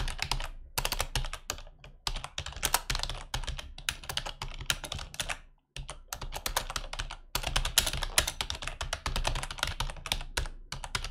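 Typing on a computer keyboard: a fast run of keystrokes, with a brief pause about halfway through.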